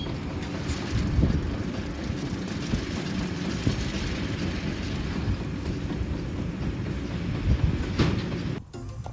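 Heavy harvest machinery running with a steady low rumble and clatter. It cuts off suddenly near the end and gives way to quieter music.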